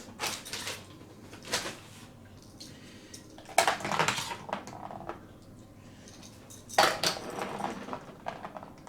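Hard plastic Bakugan toy pieces and packaging being handled, clattering and clinking in several short bursts.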